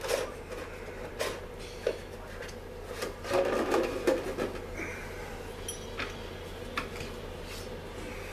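Chainsaw clutch parts and the saw body being handled on a workbench: scattered metal clicks and knocks, with a louder stretch of rubbing and clattering about three to four seconds in. A steady low hum runs underneath.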